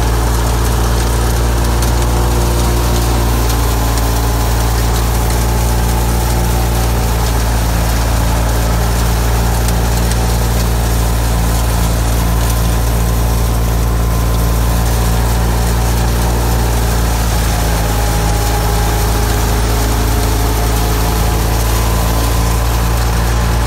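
Ford 4610 tractor's three-cylinder diesel engine running steadily under load, driving a wheat thresher through its PTO shaft, together with the thresher's running machinery.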